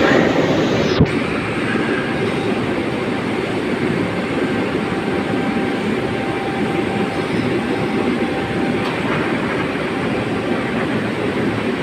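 Fire in a furnace running with a steady roaring rumble, with one sharp knock about a second in.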